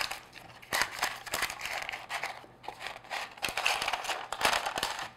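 Parchment paper crinkling and rustling as it is pressed and smoothed into a metal loaf pan, in irregular small crackles.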